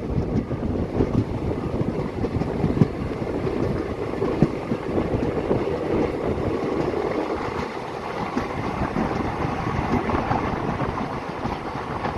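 Passenger express train running, its wheels rumbling and clattering on the rails in a steady noise, with a couple of sharper clicks early on.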